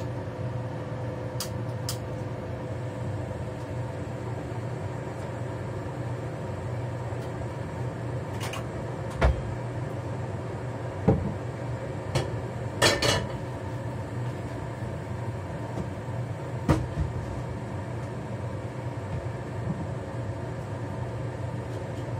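Frying pan and kitchenware being handled on the stove: a few scattered knocks and clatters, with a short cluster of them about thirteen seconds in, over a steady low hum.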